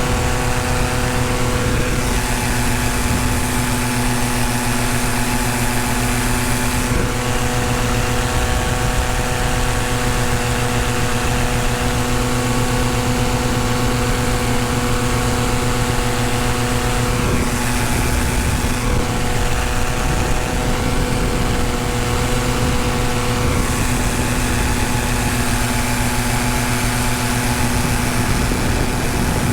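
Paramotor trike's engine and propeller running at steady power in flight, a constant drone with a hiss of airflow on top that swells and eases a few times.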